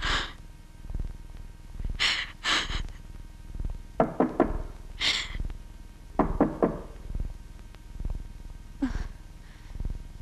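A woman sobbing, with sharp gasping breaths and broken crying sounds, over a low thud repeating about twice a second.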